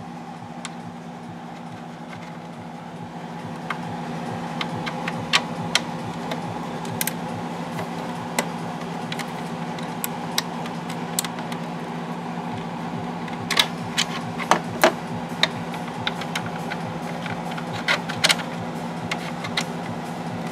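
Scattered clicks and light clinks of hand tools and small parts as motorcycle handlebar covers are taken off, with a cluster of sharper clicks about two-thirds of the way in. A steady hum sits under it all.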